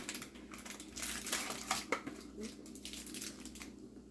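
A chocolate bar's wrapper crinkling in irregular crackles as it is handled and pulled at.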